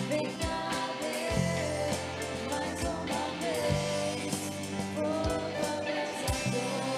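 A song with a singing voice over guitar, bass and a regular drum beat.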